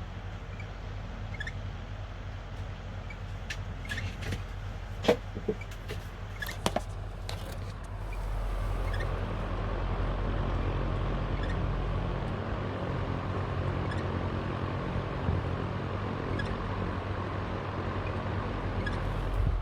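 Panasonic F-MX405-BC stand fan running with a steady hum and an abnormal mechanical noise, which gets louder about eight seconds in. A few sharp clicks come between about four and seven seconds in. The noise is a fault that the owner finds goes away for a while when the oscillation clutch knob is worked.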